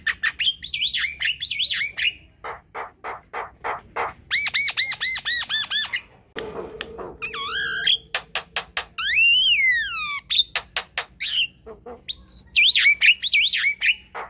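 Javan myna singing a loud, varied song: fast clicking chatter, runs of quick looping whistles, a short harsh rasp about six seconds in, and long whistles that rise and then fall.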